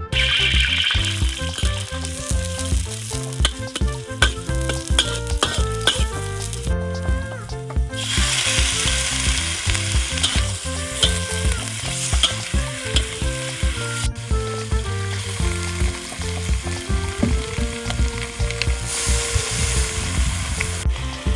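Pork belly pieces and shallots sizzling and frying in hot oil in a large black wok, stirred with a metal ladle that scrapes and clicks against the pan.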